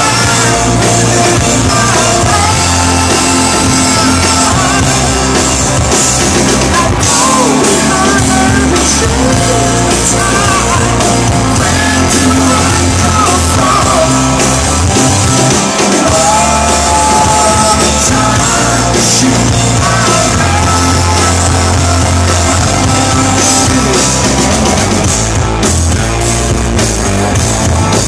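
Live rock band playing, with a sung lead vocal over the band. The band is a power trio of electric guitar, bass and drums.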